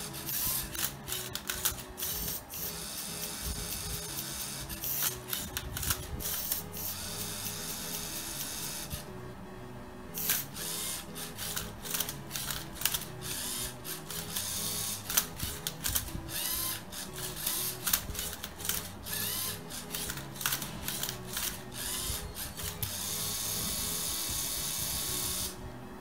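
LEGO Mindstorms EV3 Rubik's cube solving robot at work: its motors run in short bursts with many clicks and clacks as it flips and turns the cube, with a brief lull about nine seconds in. Background music plays underneath.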